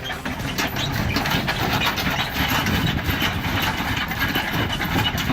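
Engine of a heavy timber-hauling truck running steadily, with a constant irregular rattle.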